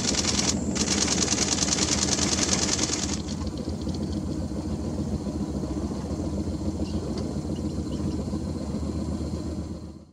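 Boat engine running at idle, a steady low hum with a fast high rattle over it that drops away about three seconds in; the sound fades out near the end.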